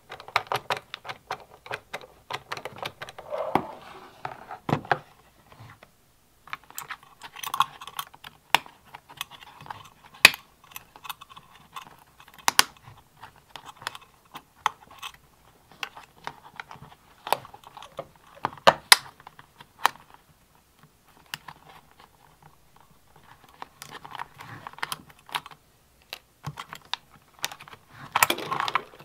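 Hand ratchet clicking in quick runs as bolts are backed out of a Honda Grom's rear fender, mixed with scattered clicks and knocks of plastic fender parts and wiring being handled.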